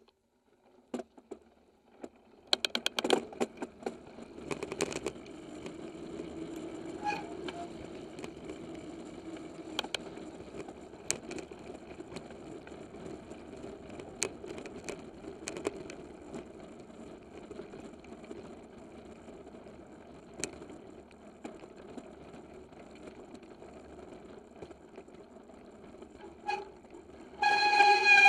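Giant XTC 2 hardtail mountain bike ridden over dirt singletrack, heard from the handlebar: steady tyre rolling and wind noise with a burst of rattling a few seconds in and scattered sharp knocks from the frame and chain over bumps. Near the end a loud pulsing horn-like tone comes in over it.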